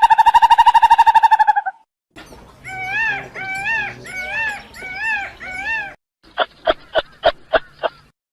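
A series of animal calls: a held buzzing call that stops about two seconds in, then five rising-and-falling calls, then a rapid run of short, sharp calls at about three a second.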